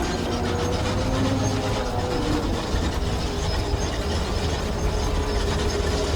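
Heavy machine engine running with a steady low rumble, a few faint held tones above it.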